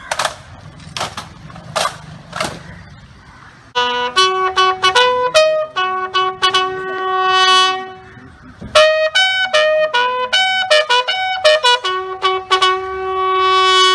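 A few sharp rifle slaps as a naval guard of honour comes to present arms, then a bugle call of held, stepped notes sounded for the funeral salute.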